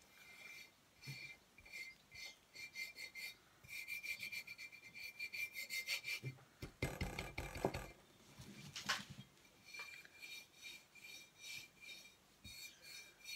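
Fingers rubbing a paper napkin flat onto a glued bottle in quick repeated strokes, a dry, hissy rubbing. The strokes come thickest past the middle, and a louder, deeper scuff follows about seven seconds in.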